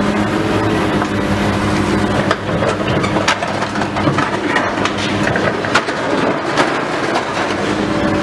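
Heavy demolition machinery running with a steady engine hum while building debris crunches and cracks, with scattered sharp knocks through the middle.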